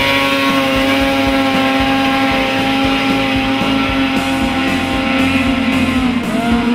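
Snowmobile engines running at high, steady revs as the sleds skim across open water, a sustained whine; the pitch dips and climbs again about six seconds in.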